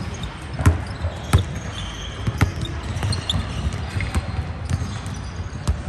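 Basketball bouncing on a hardwood gym floor: four separate, irregularly spaced bounces.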